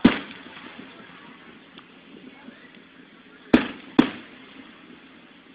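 Aerial firework shells bursting overhead: one sharp bang right at the start, then two more about half a second apart some three and a half seconds in, each dying away briefly.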